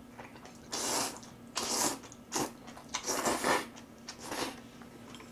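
A person slurping buckwheat noodles (makguksu) from a small bowl, in about five short noisy slurps, with some chewing.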